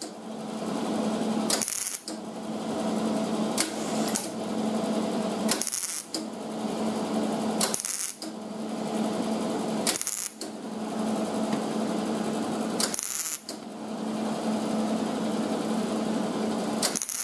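MIG welder laying short stitch welds along a sheet-steel patch panel seam: a steady crackling arc over a low hum, in runs of about two seconds broken by brief pauses, some eight in all. The welds are kept short at a low heat setting so the thin panel does not warp.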